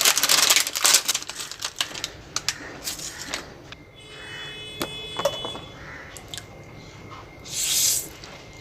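A rapid run of small clicks and crackles for about three seconds, then scattered clicks, a brief high steady tone, and a short hissing burst near the end.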